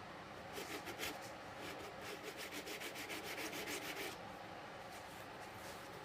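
Steel chisel back scrubbed back and forth on a coarse diamond sharpening stone, in quick even strokes about five a second, stopping about four seconds in. This is the flattening of the chisel's back, which is badly dished and only catching the stone around its edges.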